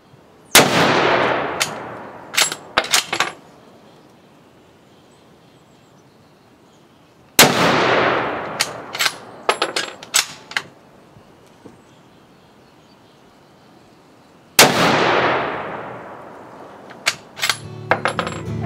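Three shots from a Remington Model 700 bolt-action rifle in 7mm Remington Magnum, about seven seconds apart, each with a long fading echo. Each shot is followed by a quick run of sharp metallic clicks as the bolt is worked.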